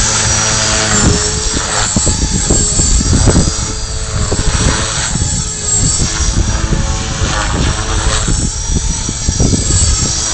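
Align T-Rex 450 Pro electric RC helicopter flying 3D manoeuvres: a steady high whine from the electric motor and spinning rotor, with the blade sound shifting as the helicopter hovers, flips and flies inverted, over gusting wind buffeting the microphone.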